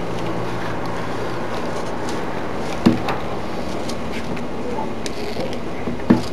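Stranded copper wire being handled and gripped with pliers: two sharp clicks, one about three seconds in and one near the end, over a steady background hum.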